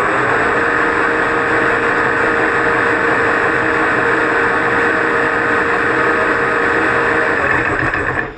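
Monarch 10EE lathe's AC motor, run by a Huanyang GT variable frequency drive, spinning up and running steadily, then stopping near the end. The drive's carrier frequency is set at 12, a setting at which the owner can no longer hear the motor's high-pitched frequency noise.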